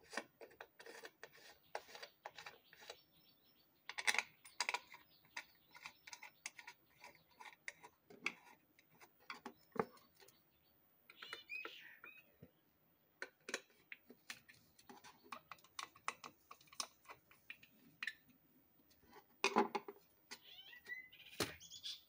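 Scattered small clicks and taps of a screwdriver and screws against a ceiling fan's motor housing as the cover-plate screws are fitted and tightened.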